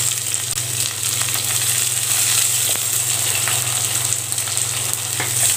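Freshly added chopped onions sizzling in hot oil in a clay pot, with a wooden spatula stirring and ticking against the pot now and then. A steady low hum runs underneath.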